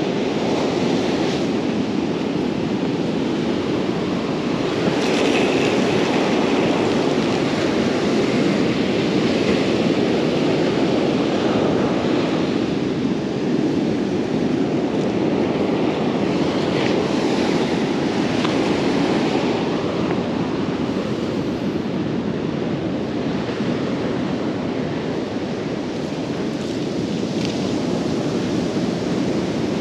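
Ocean surf breaking and washing up a sandy beach, a steady rush with no pauses, mixed with wind on the microphone.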